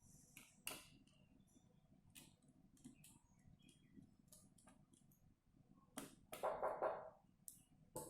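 Small scattered clicks of handling a tablet's internal parts, then a short rasping scrape about six seconds in and a sharp click near the end, as the spring buckles holding the tablet's core board are worked open.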